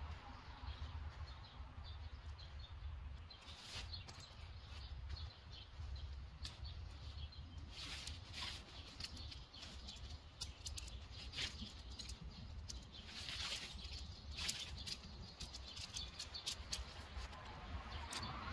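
Nylon tent fabric rustling and crinkling in scattered bursts as the tent's poles are pulled out and the tent is collapsed, over a steady low rumble.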